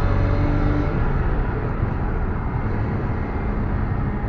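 BMW E34 on the move, heard from inside the cabin: steady engine and road noise.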